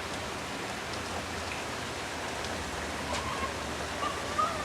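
Steady rain falling, an even hiss with no pauses, with a faint high voice briefly about three seconds in and again near the end.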